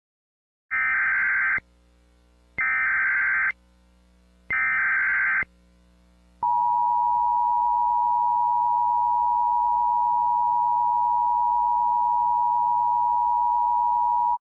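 Emergency Alert System tones: three buzzy, roughly one-second bursts of SAME digital header data about a second apart, then the steady two-tone attention signal held for about eight seconds. Together they signal that an emergency alert message is about to follow.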